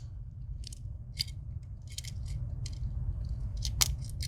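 Swiss Army knife tools clicking and scraping as they are handled, folded and opened, with a sharper snap a little before the end, over a low steady hum.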